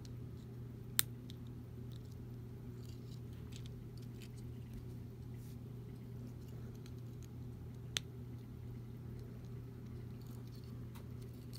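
Plastic Lego pieces being handled, with two sharp clicks about seven seconds apart and a few faint ticks, over a steady low hum.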